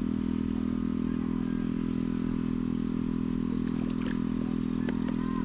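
A small engine running steadily at an even speed, a constant droning hum.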